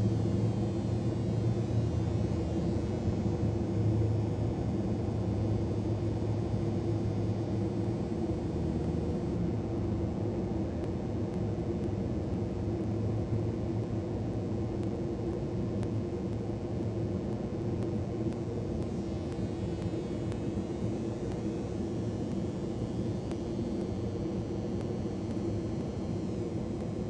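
Steady low rumble with a constant hum, the drone of city and building machinery, with no bird calls.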